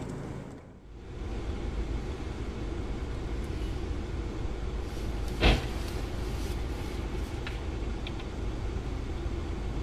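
Dashcam recording of a steady low vehicle rumble: engine and road noise heard from inside a car. One sharp bang about five and a half seconds in.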